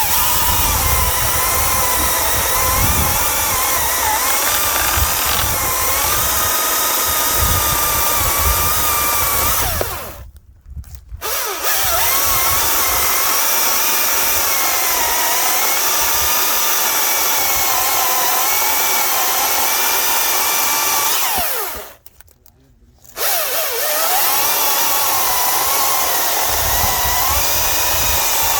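Husqvarna 540i battery chainsaw cutting through an oak log. Its electric motor whine wavers in pitch as the chain bites, and the saw stops twice briefly and starts again.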